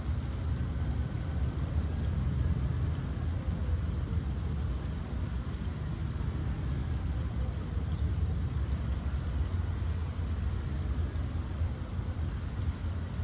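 Steady low rumble of outdoor ambient noise, even throughout with no distinct events.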